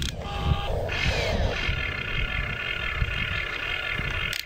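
Huina RC excavator's electric motors and gearboxes whining steadily as the arm and bucket dig into the dirt, with the pitch rising briefly about a second in.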